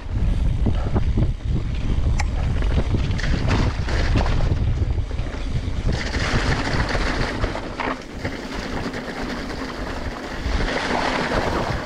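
Wind buffeting a GoPro's microphone on a moving mountain bike, with a rushing hiss of tyres on the trail and scattered clicks and rattles. The low wind rumble is heaviest in the first half, and the hiss grows brighter about halfway through.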